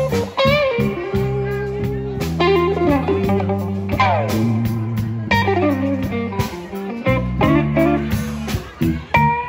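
Live blues played by an electric guitar, bass guitar and drum kit trio. The lead guitar plays bent, wavering notes and two falling runs, about four and five seconds in, over a steady bass line and drum beat.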